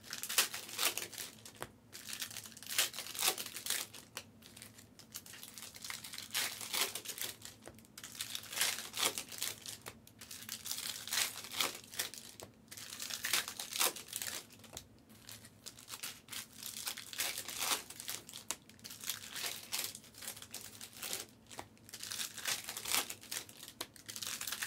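Foil trading-card pack wrappers crinkling and being torn open, in irregular rustles throughout.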